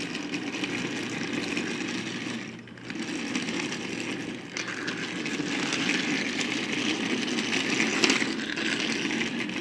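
A diecast toy Tesla Semi being driven and played with, making a steady, rough engine-like rumble that breaks off briefly about two and a half and four and a half seconds in.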